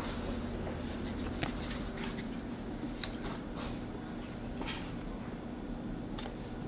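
Quiet tabletop handling: soft scattered clicks and taps as Play-Doh and toy tools are worked by hand, over a steady low background.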